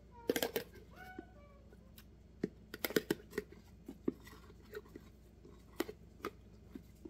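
A metal spoon scooping diced roasted green chilies out of their container, with scattered clicks and taps of the spoon against it and a couple of short squeaks about a second in.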